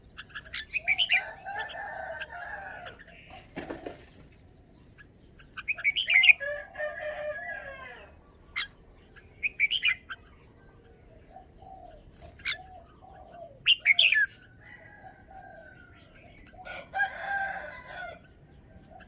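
Red-whiskered bulbul singing: several short bouts of quick, sliding whistled song phrases, separated by pauses of a second or two. A brief rustling burst comes about four seconds in.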